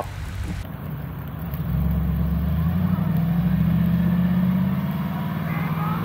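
A 4x4's engine running under load in deep snow, getting louder about two seconds in, holding, then easing off slightly near the end.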